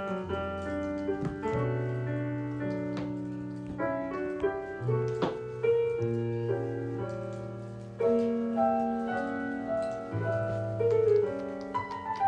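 Background piano music: single notes and chords struck and left to fade, over slow-changing bass notes.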